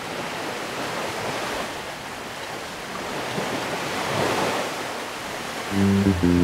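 Small sea waves washing over rocks and driftwood at the water's edge, swelling about four seconds in. Music starts near the end and is louder than the surf.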